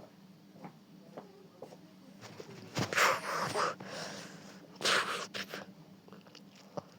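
Two breathy, hissing bursts of noise, the first about three seconds in and lasting nearly a second, the second shorter near five seconds, with a few faint clicks between.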